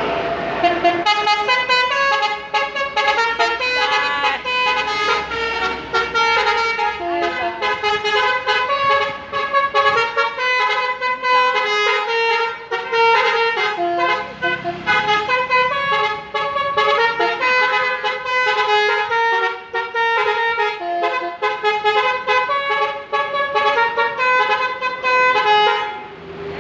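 Adi Putra bus's telolet horn, a set of musical bus horns, playing a fast tune note after note with short breaks between phrases.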